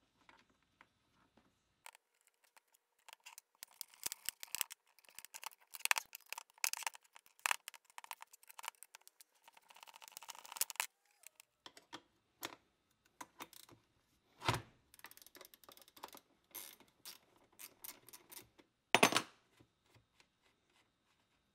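Steel wrenches clicking and scraping on the nut and cast body of a 1930s Syntron electric hammer: a dense run of quick metal clicks for several seconds, then sparser clinks, with two louder knocks about two-thirds of the way in and near the end.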